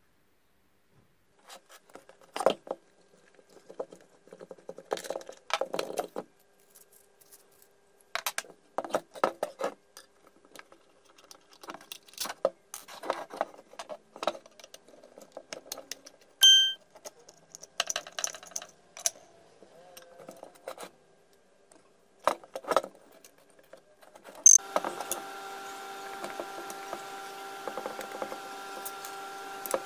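Metal parts and hand tools clicking, clinking and knocking while a Makita 1902 electric planer is dismantled on a wooden bench. About halfway there is one brief, loud, high-pitched squeak. A steady hum with a hiss starts near the end.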